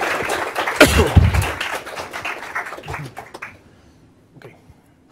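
Audience applauding at the end of a lecture, a dense patter of clapping that dies away about three and a half seconds in, with a loud low bump near the microphone about a second in.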